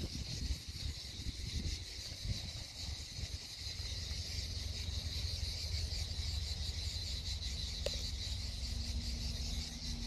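Steady, high-pitched chorus of insects chirring in dry summer scrubland, with a low rumble on the phone's microphone that is strongest in the first few seconds.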